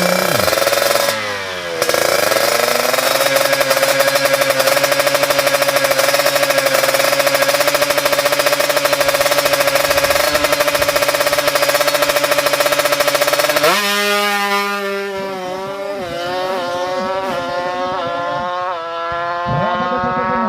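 Tuned two-stroke Kawasaki Ninja 150 engines bored to 155cc, held at high revs with a rapid buzzing pulse, then launching: the pitch drops and climbs again several times as the bikes shift up through the gears.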